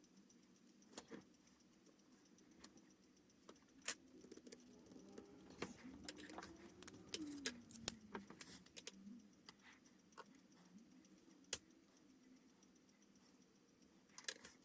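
Faint, scattered clicks and taps of art pens and supplies being handled on a desk, busiest in the middle with some light scratching.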